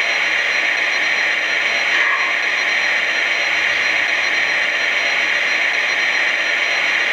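The onboard sound system of a Lionel O gauge Southern Pacific GS-4 #4449 model steam locomotive plays a steady hiss of steam while the engine stands idle, with a thin, high, steady tone above it.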